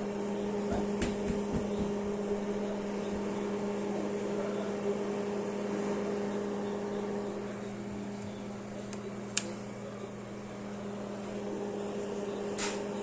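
Microwave oven running with a steady hum while heating a s'more. There is a sharp click about nine seconds in and a fainter one near the end.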